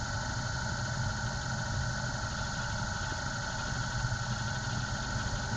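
Metal lathe running at high spindle speed with a GoPro spinning in its chuck: a steady motor whine over a low hum.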